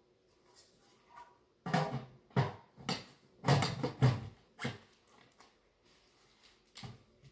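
Irregular knocks and rustles from hands working a flat panel onto the top of a wooden box, a quick run of them loudest in the middle, then one more knock near the end.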